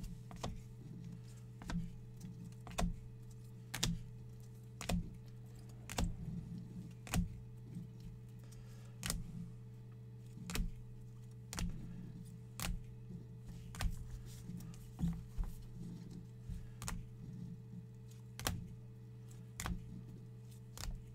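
Rigid plastic toploaders clicking against one another as a stack of top-loaded trading cards is flipped through one card at a time, about one click a second, over a steady low hum.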